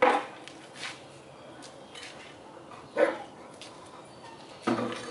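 A Hovawart barking a few short, sharp times.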